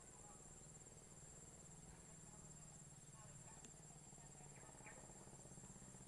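Faint forest ambience: insects shrilling steadily with a fast, high-pitched pulse over a low hum, with a few faint chirps about five seconds in.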